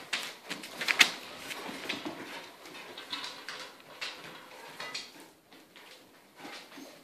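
Scattered light clicks, knocks and rattles from a wire puppy pen as the puppies move about inside it, the loudest knock about a second in.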